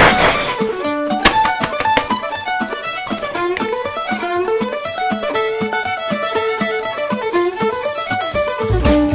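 Upbeat background music led by a fiddle, playing quick running notes over plucked string accompaniment.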